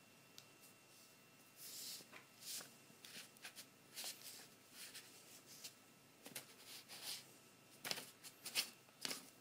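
Faint, irregular light rustling and clicking, with a few sharper clicks near the end.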